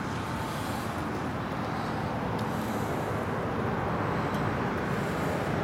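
Steady outdoor background noise with a low rumble, like distant road traffic.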